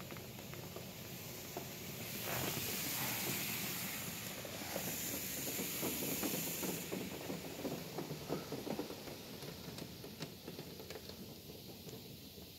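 High-pressure water jets of a D&S IQ touch-free car wash spraying against a car, heard from inside the cabin as a hiss. It swells about two seconds in, then breaks into scattered spattering and fades toward the end.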